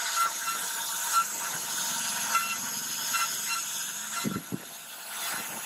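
CNC router spindle running at a steady high whine while its bit cuts into wood, with short repeated pulses as the cutter moves along the pattern. Two brief low thumps about four seconds in.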